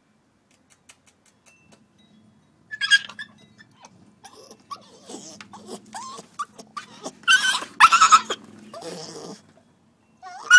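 Staffordshire bull terrier puppy whining and crying, high-pitched whimpers that rise and fall in pitch, starting about three seconds in and louder near the end. It is crying at being shut outside the door.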